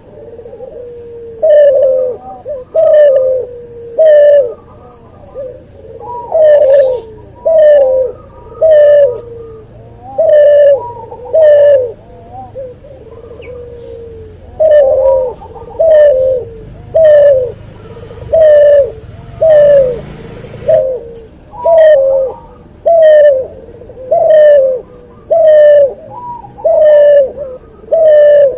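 Hybrid dove (white albino ringneck dove × puter pelung) cooing: a long series of loud, short coos, each rising and then falling in pitch, about one a second, with a brief pause midway.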